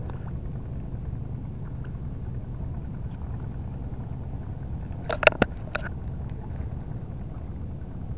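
Steady low rumble with three or four sharp clicks about five seconds in, from a hand handling a light spinning rod, its reel and a small metal micro spoon lure.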